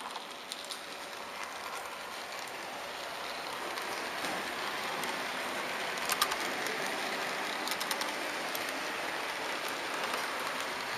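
HO scale model train rolling along the track, heard close up from aboard: a steady rattling hiss of wheels on rail that grows a little louder after a few seconds, with a few sharp clicks around the middle.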